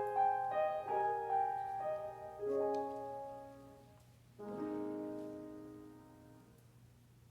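Piano playing the closing bars of a song accompaniment: a run of single notes and chords, then a held chord about four and a half seconds in that slowly fades away.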